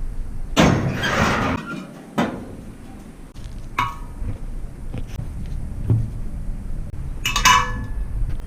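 A second-long rushing noise about half a second in, then a few separate knocks and clinks of hard objects, several with a brief metallic ring.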